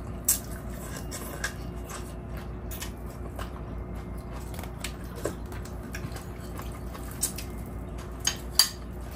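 Eating sounds: a spoon clicking lightly against a ceramic soup bowl and soft chewing, a few scattered clicks with the loudest near the end, over a steady low hum.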